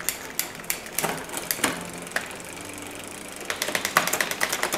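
Bicycle rear drivetrain with a Shimano Altus rear derailleur and 8-speed cassette turning: chain running over the spinning cassette with irregular clicks and ticks. These become a quick ticking about three and a half seconds in.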